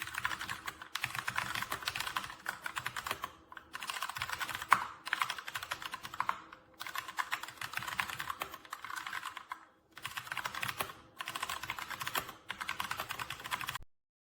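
Fast typing on a Keychron K2 mechanical keyboard: rapid key clicks in bursts of a few seconds with short pauses between, stopping abruptly near the end.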